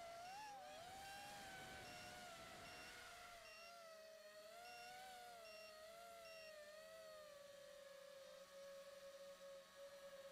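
A 5-inch FPV quadcopter's motors whine, the pitch wavering up and down with the throttle, then settling lower and steadier for the last few seconds. A short high beep repeats about every three quarters of a second through the first six seconds or so. It is a low-voltage alarm, the sign of the old 3S 2200mAh LiPo battery sagging.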